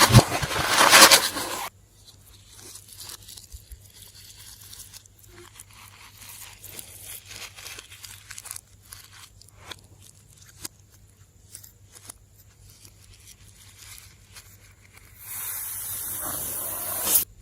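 Slime-making sounds: a loud hissing burst at the start and another near the end, with soft, scattered sticky crackles and clicks of slime being handled in between.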